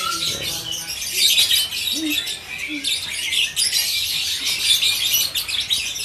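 A dense, continuous chorus of many caged birds chirping and twittering all at once, high-pitched.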